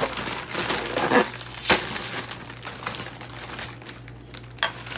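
A bag of Doritos chips crinkling as it is handled. The crinkling is dense and loudest in the first two seconds, with a sharp crackle just under two seconds in, then thins to lighter scattered rustles.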